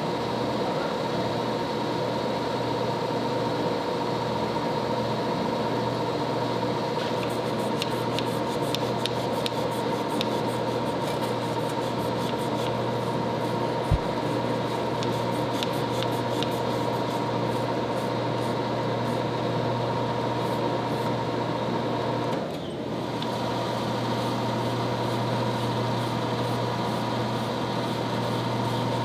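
Steady drone of running shop machinery, with faint ticking through the middle, one sharp knock about fourteen seconds in, and a brief dip about twenty-two seconds in.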